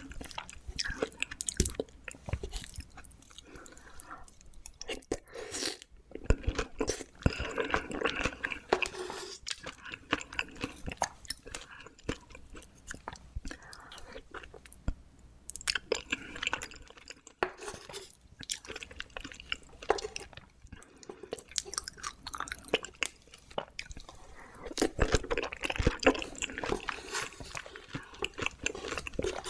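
Close-miked eating of a chilled peach dessert filled with whipped cream and Nutella: biting into firm peach flesh and chewing, with crisp crunches and wet mouth sounds that come in bouts throughout.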